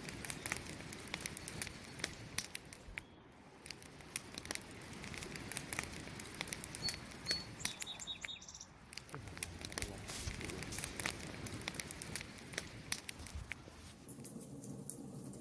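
Wood campfire crackling: irregular sharp snaps and pops over a steady low rush of burning, the pops thinning out near the end.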